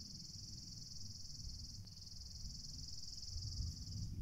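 An insect's high, steady, rapidly pulsing buzzing trill, with a brief break about two seconds in, stopping shortly before the end, over a low rumble.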